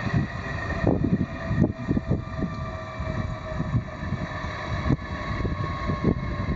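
AgustaWestland AW139 twin-turboshaft helicopter during engine shutdown, its main rotor still turning: a turbine whine made of several steady high tones over an uneven low rumble.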